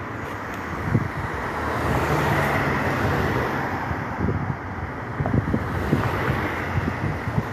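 Road traffic passing on a dual carriageway, with wind buffeting the microphone in low gusts. The pelican crossing's beeper is silent, with no beeping tone to be heard.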